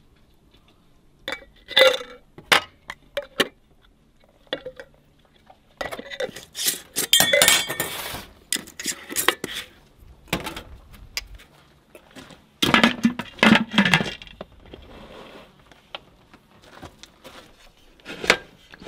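Glass canning jars clinking against one another and against the aluminum pressure canner as they are loaded in, in scattered clusters of sharp clinks and knocks, with one last sharp knock near the end.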